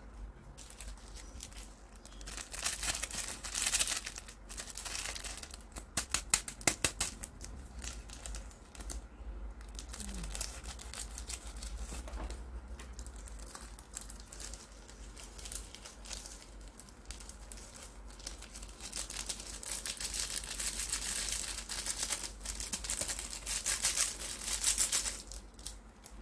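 Foil seasoning sachets of instant mi goreng crinkling as they are handled and snipped open with scissors. There are bouts of crinkling near the start and again near the end, with a run of sharp clicks about six seconds in.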